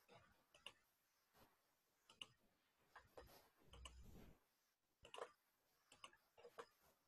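Faint, irregular clicking of computer keys being tapped, with a soft low thump about four seconds in.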